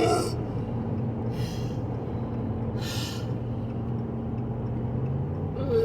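Car engine and road noise heard inside a moving car, a steady low hum whose engine note rises slightly about five seconds in as the car speeds up. Short hissy sounds recur roughly every one and a half seconds over it.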